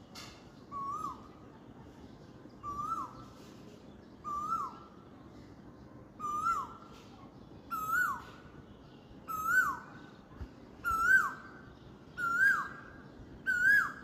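Asian koel calling its two-note "ko-el" nine times in a rising series, each call a little higher, louder and closer to the last.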